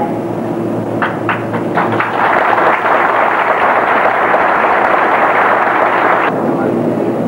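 Audience applauding: a few scattered claps about a second in build into full, dense applause, which cuts off abruptly near the end.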